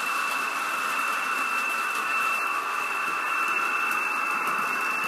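Model trains running at full speed round the layout: a steady high motor whine over an even hiss of wheels on the track.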